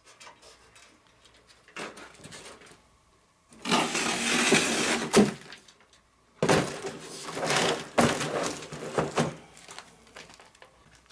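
Lithonia sheet-metal shop light fixture and its cardboard box being handled: two long stretches of scraping and rustling with sharp knocks, the second starting after a short pause and running longer.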